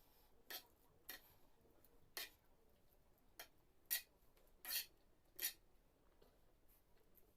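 Close-up eating sounds: about seven short, sharp smacks and clicks at uneven intervals, the loudest about four seconds in, against near-quiet.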